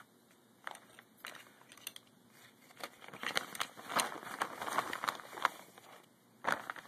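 Clear plastic bag crinkling as it is handled: a run of irregular sharp crackles, thickest in the middle.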